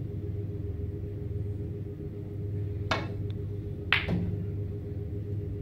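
A snooker shot: a sharp click of the cue tip on the cue ball about three seconds in, then a second later a louder click as the cue ball strikes an object ball. A steady low hum runs underneath.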